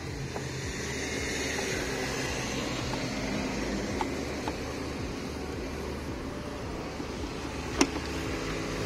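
A few light clicks of plastic and metal engine parts being handled under the bonnet, a couple about four seconds in and a sharper one near the end, over a steady background hum.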